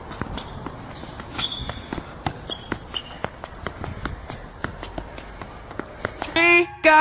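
A football being dribbled and juggled on an indoor court floor: many sharp, irregular taps of foot on ball and footfalls. Electronic music with a pitched synth tone comes in near the end.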